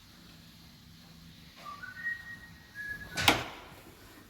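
A person whistling a few short notes that step up in pitch, then a single sharp knock about three seconds in.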